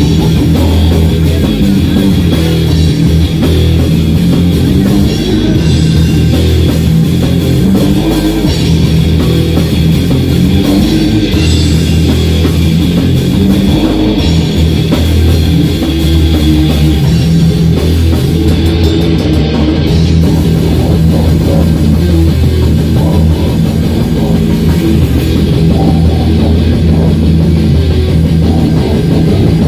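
Live rock band playing loud, heavy-metal style: electric guitars and a drum kit going without a break.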